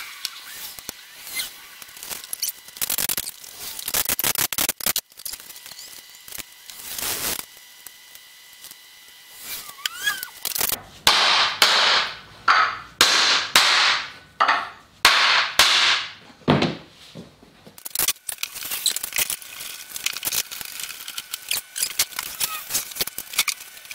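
A mallet knocking a glued wooden leg onto a bed side panel: about ten sharp blows roughly half a second apart near the middle. Before and after, scattered small clicks and knocks as the parts are handled and the bar clamps are set.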